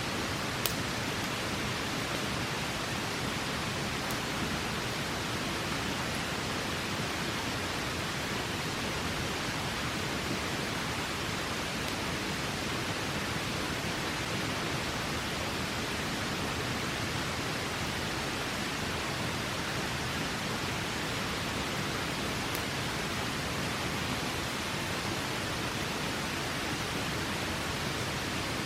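River water rushing steadily, with a few faint sharp crackles of a campfire.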